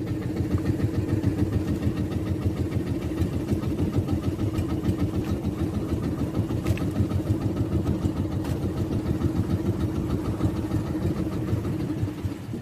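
Small fishing boat's engine running with a steady, fast chugging beat as the boat comes in through shallow water; it drops away sharply near the end.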